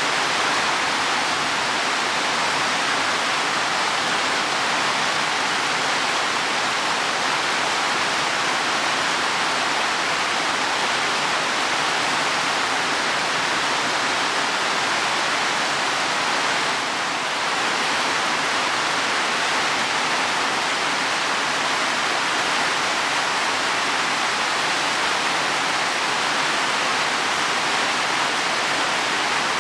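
Heavy rain falling steadily on leaves and soil: a dense, even hiss that dips slightly for a moment a little past halfway.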